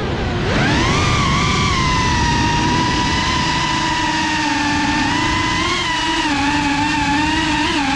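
Motors and propellers of a GEPRC CineLog35 FPV quadcopter whining. The pitch climbs steeply over the first second as the throttle comes up, then holds fairly steady with small wobbles.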